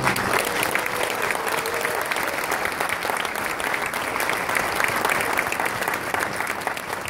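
A large audience applauding, a dense steady clapping that eases off a little near the end.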